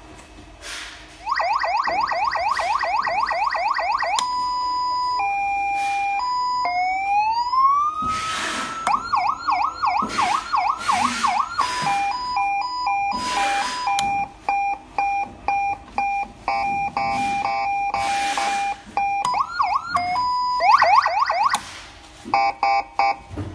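Electronic siren from a 200-watt siren amplifier being switched through its tones. It starts about a second in with a fast yelp, then gives a two-tone hi-lo, a slow rising wail, and yelp and hi-lo patterns again, with short broken beeps near the end.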